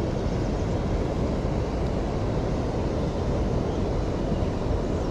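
Steady, even rushing noise of flowing river water, with no distinct events.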